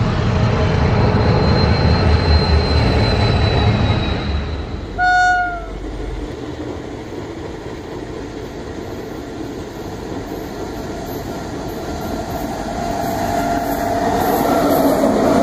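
A diesel locomotive running light, its engine rumbling with a thin high whine, then a short horn blast about five seconds in. After that a WAG9 electric locomotive running light approaches, growing louder with a steady hum as it nears.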